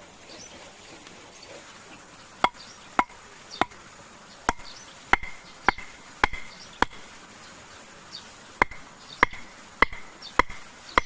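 Chopping strokes of a blade into wood: a run of about eight sharp strikes roughly every half second, a pause, then five more.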